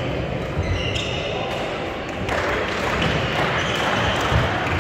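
Badminton rally: sharp racket hits on the shuttlecock and short high squeaks of shoes on the court floor, with voices in the background.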